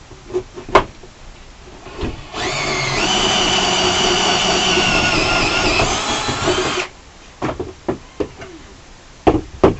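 Power drill spinning up about two seconds in, running steadily for about four seconds, then stopping, while drilling a hole through to a battery box. Sharp knocks and clicks come before and after it.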